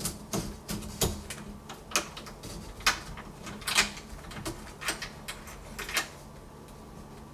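Irregular clicks and light knocks of metal door-latch hardware being handled and fitted into the edge of a wooden door, about a dozen over several seconds.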